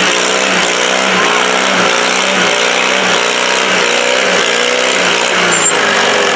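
Modified garden tractor's engine running hard under full load while pulling a weight-transfer sled, its pitch surging up and down about every half second as the load bears down.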